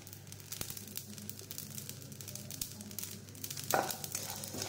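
Mustard seeds popping as they dry-roast with fenugreek in a hot pan: scattered sharp ticks and crackles. A wooden spatula scrapes through the seeds once, near the end.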